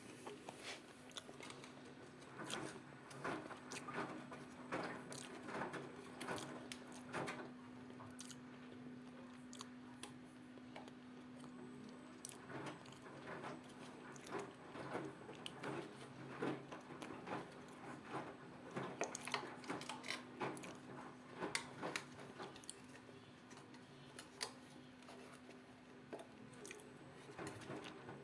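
Ariston 4.5 kg front-loading washing machine in its wash cycle: the drum turns wet laundry, making irregular sloshing and clicking over a steady hum.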